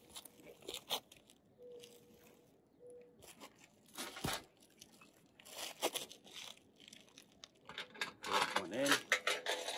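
Aluminium solar mounting rail (IronRidge XR100) being picked up and moved over asphalt shingles: scattered knocks and scrapes, with a heavier thump about four seconds in. Indistinct talk near the end.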